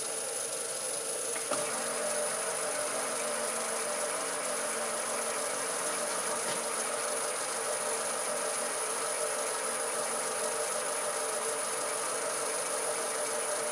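Belt-driven metal lathe running steadily at medium speed, spinning a freshly machined spindle on a test run for trueness. A light click comes about a second and a half in, after which a low steady hum joins the motor and belt noise.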